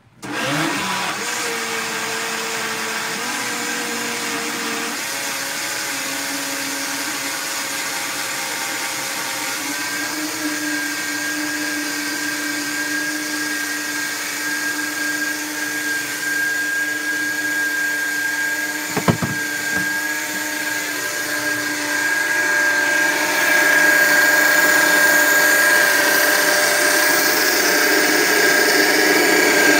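Countertop blender switched on and running, blending a thick Irish moss and aloe gel concentrate; its motor tone shifts a few times and it gets louder about three-quarters of the way through. A single sharp knock about two-thirds of the way through.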